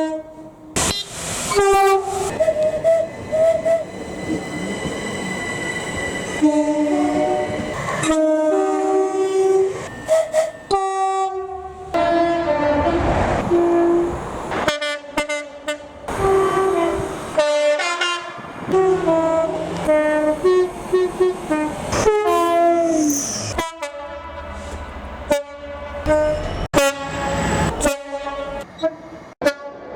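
A multi-tone train horn played as a tune: a long run of short and held notes at several different pitches, with the noise of the running train between some of them.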